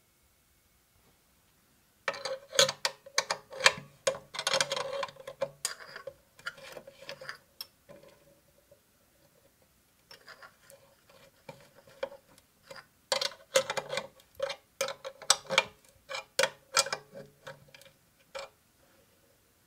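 Rapid metallic clicks and clinks of a spanner turning the bolt on a bench grinder's steel tool rest, with the grinder switched off. The clicks come in two busy spells, one starting about two seconds in and another after about thirteen seconds, with scattered clicks in between.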